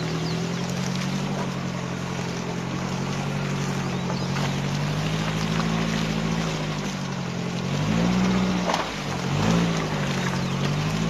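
A 4x4's engine pulls at low speed while its front tyre, aired down to 25 psi, churns through wet mud. Near the end the engine revs up and down twice as the wheel spins and throws mud.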